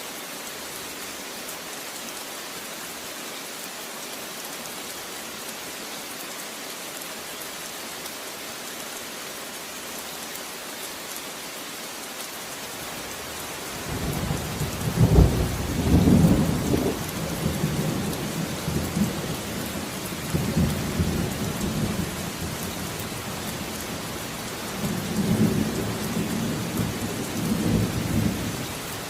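Steady rain falling, joined about halfway through by rolling thunder that is loudest when it first breaks and rumbles on in waves until near the end.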